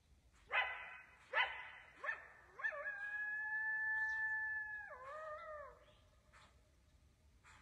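Coyote giving two sharp barks and a shorter yelp, then one long howl held at a steady pitch that dips and wavers before it ends, about six seconds in.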